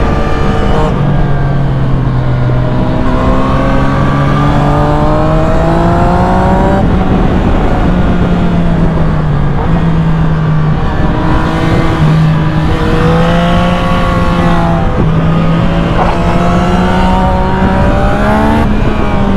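Yamaha MT-09 SP's three-cylinder engine with an Akrapovic exhaust, heard on board while riding, over a rush of wind noise. The revs climb steadily for several seconds and drop sharply about seven seconds in at a gear change. They then hold fairly even with two smaller rises and drop again near the end.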